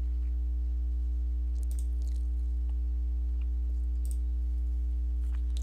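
Steady low electrical hum on the recording, with a few faint computer mouse clicks, about two seconds in and again about four seconds in.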